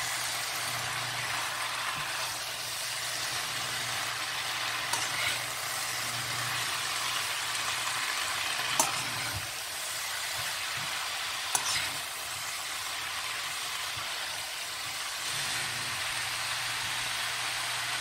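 Spinach sizzling as it wilts in a hot wok, giving a steady hiss, while a metal utensil stirs it. A few sharp clicks of the utensil against the pan, the loudest about 9 and 11.5 seconds in.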